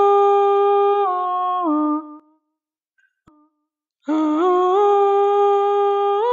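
A single voice sings long, wordless held notes without accompaniment, in two phrases. Each note is held steady and then steps down in pitch at the end of the phrase. The first phrase ends about two seconds in, and after a short silence the second begins about four seconds in.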